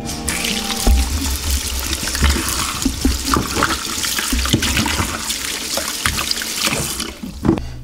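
Tap water running into a bowl of peeled potatoes and pumpkin chunks as a hand swishes and rubs them clean. The pieces knock lightly against each other and the bowl. The water stops near the end.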